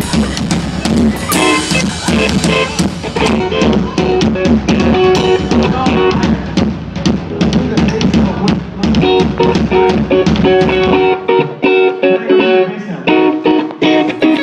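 Live pop-rock band playing through the venue PA at a sound check: busy drum kit with cymbals and snare over electric guitar. The heavy low bass drops out about eleven seconds in, leaving guitar and drums.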